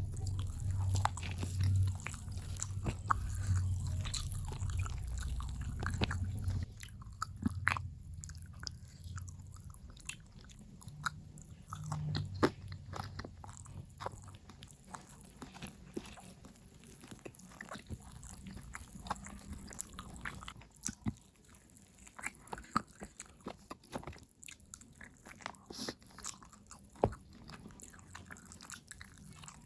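A person chewing and biting food close to the microphone, with many short clicks and crunches; louder for the first seven seconds or so, then softer chewing.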